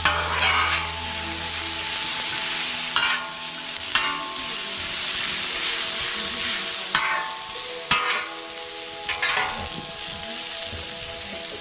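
Sliced bell peppers sizzling on a hot flat-top griddle, with a metal spatula scraping across the steel plate several times as the peppers are turned.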